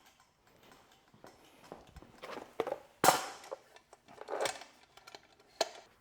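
Several knocks and clatters of hard objects being handled as a heavy car seat is shifted onto a pair of scales, the loudest a sharp knock about three seconds in.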